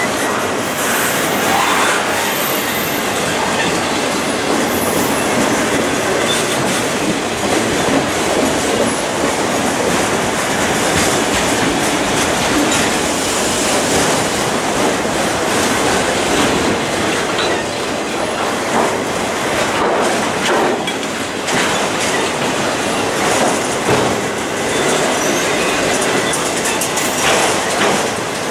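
Autorack cars of a freight train rolling past close by: a steady noise of steel wheels on rail.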